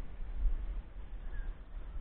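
Outdoor ambience: a low, uneven rumble on the microphone over a faint even hiss, with one short, high bird chirp about a second and a half in.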